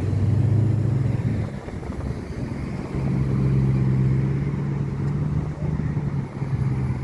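Cars and a pickup truck driving past close by, a steady low engine hum over tyre noise, growing louder about three seconds in as the pickup pulls through.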